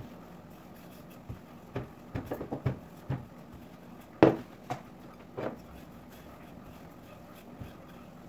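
Wooden rolling pin being rolled over bread dough on a table, with a run of short knocks and clacks from about a second in and the loudest knock just past four seconds.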